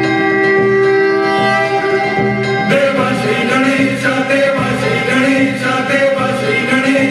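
Music playing for a stage dance: steady held chiming tones, then about two and a half seconds in a full song with singing comes in suddenly.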